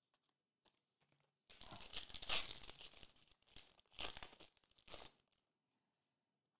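A foil wrapper of a 2021 Topps Garbage Pail Kids Chrome trading-card pack is torn open and crinkled. A long tearing crackle starts about a second and a half in, followed by a few shorter crinkles.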